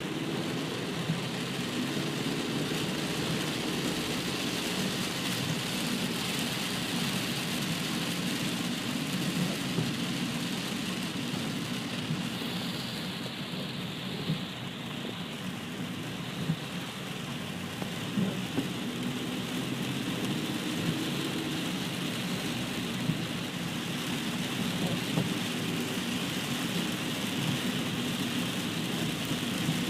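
Steady rain falling on a car while it is being driven, with the low, even noise of the car and its tyres on the wet road beneath it. A few sharp ticks stand out here and there.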